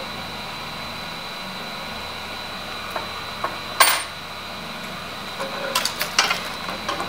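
Small metal tools clicking and clinking against a circuit board or workbench: a few single clicks, the loudest about four seconds in, then a quick cluster around six seconds. Under them runs a steady hum with a faint high whine.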